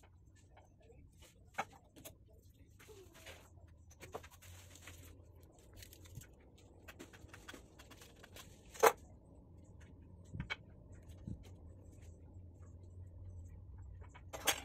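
Scattered small clicks and taps from hands handling a DC barrel plug, solder wire and soldering iron at a workbench, with one sharper click about nine seconds in, over a faint low hum.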